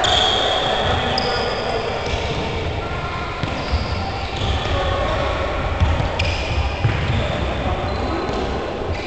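Handballs bouncing and knocking on a sports-hall court, echoing in the large hall, with a few short high squeaks.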